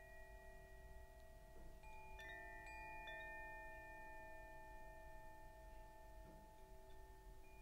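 Faint, slow background music of long-ringing chime-like tones, several notes layered; a few new notes are struck about two to three seconds in and another near the end.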